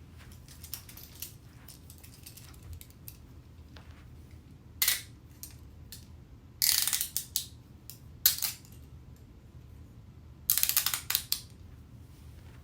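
Metal handcuffs being worked, their ratchet clicking. There is a sharp click about five seconds in, then two short runs of rapid ratchet clicks with a double click between them, and light metal clinks throughout.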